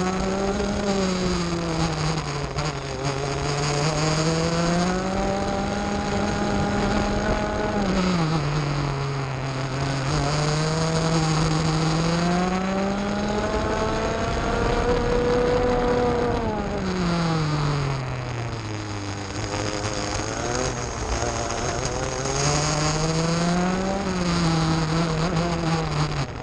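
Rotax 125 cc two-stroke kart engine heard onboard at racing speed. It revs up on each straight and drops in pitch when the kart brakes into the corners, falling sharply about a second in, near eight seconds, around seventeen seconds and again near the end.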